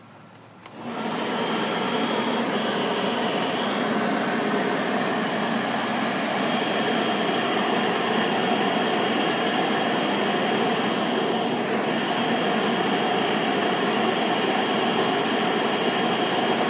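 Electric Craftsman leaf blower switching on about a second in, then running steadily with a thin high whine over the rush of air, forcing air through a hose into the coal bed of a makeshift brick forge.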